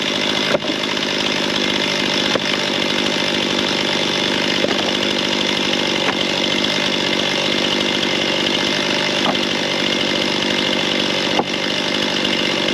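Two-stroke chainsaw held at a steady high speed, cutting through sawmill slab cutoffs, with a few light knocks.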